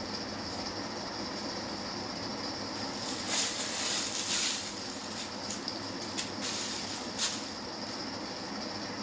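Thin plastic carrier bag and small plastic medicine packets rustling and crinkling as they are handled, loudest for about a second around four seconds in, then a few short sharp crinkles. A steady background hiss runs underneath.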